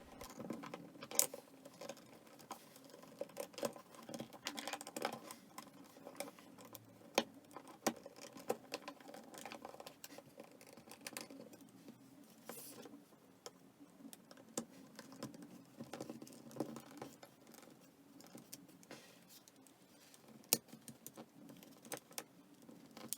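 Faint, irregular small clicks and scratches of a plastic guitar pick prying the clips that hold a Samsung C3590 flip phone's motherboard in its housing.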